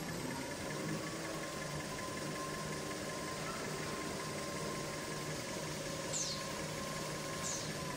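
Paper rewinding machine for kitchen towel and toilet paper running at speed: a steady mechanical hum and rattle with a high whine that holds steady, plus two brief high swishes near the end.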